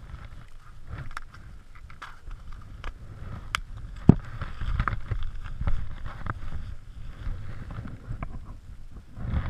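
Wind rumbling on the microphone, with scattered small clicks and knocks from handling and a sharp knock about four seconds in.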